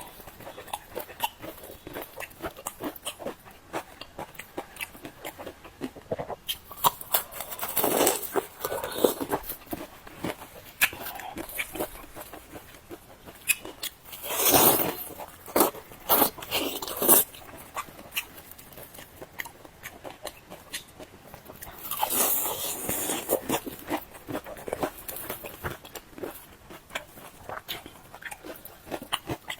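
Fried dough sticks being bitten and chewed close to the microphone: steady crackly chewing with several louder crunchy bites a few seconds apart.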